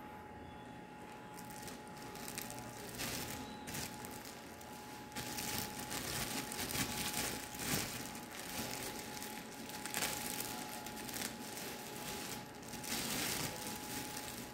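Clear plastic packaging crinkling in irregular bursts as it is handled and pulled open to take out a headset microphone, loudest in the middle stretch and again near the end.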